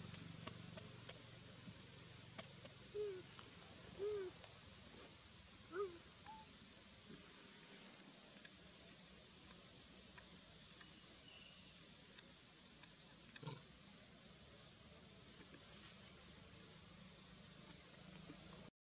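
Steady, high-pitched drone of an insect chorus, with a few faint short calls about three to six seconds in. The sound cuts out briefly near the end.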